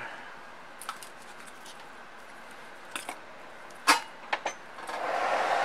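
A few light clicks and taps of a soldering iron and tools being handled against the circuit board, the sharpest about four seconds in. Near the end a steady rushing noise, like a small fan, comes up and holds.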